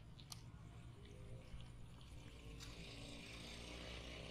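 Near silence: faint outdoor ambience, with a soft click about a third of a second in.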